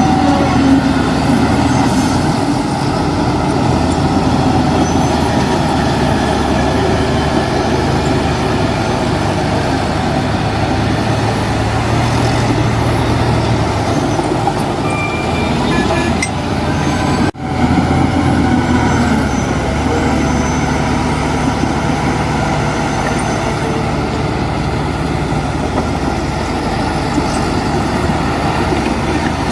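Heavy diesel engines of a bulldozer and dump truck working, running steadily with the revs shifting now and then, and a brief sudden break a little past halfway.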